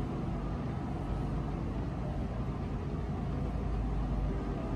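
Steady low mechanical rumble with a faint hum in the background, even and unchanging, of the kind a running engine makes.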